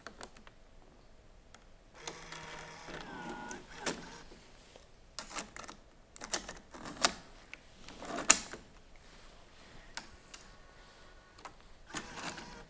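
Canon camcorder's cassette compartment worked by hand: a small motor whirs as the tape door opens, then a series of plastic clicks and snaps as the door is handled and pushed shut, the loudest snap about two-thirds through. A short steady motor whine follows near the end.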